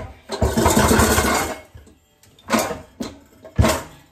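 A basket holding KitchenAid mixer attachments being slid across a kitchen cabinet shelf: a rough scraping rattle for about a second, followed by three short knocks as things are set down.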